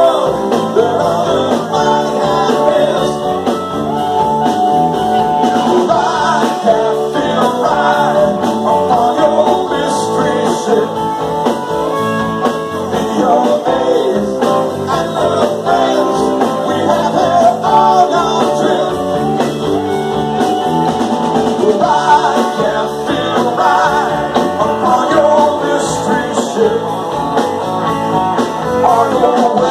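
Live band playing a song: a male singer over electric guitars, drums and keyboard, amplified through the PA, continuous throughout.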